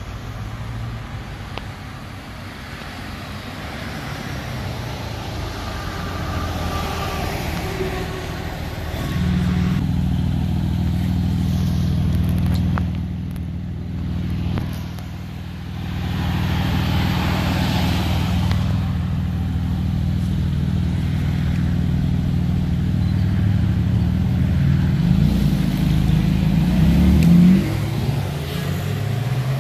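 Car engines as cars drive off one after another, with a steady low engine note through the middle. Near the end an engine revs up and accelerates away.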